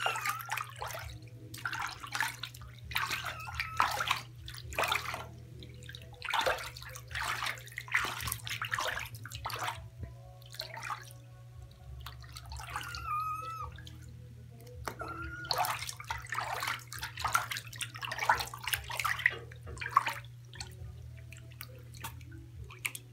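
Bath water in a tub splashing and sloshing in irregular bursts as a gloved hand washes a wet Chinchilla Himalayan kitten. The kitten gives a couple of short mews a little past halfway.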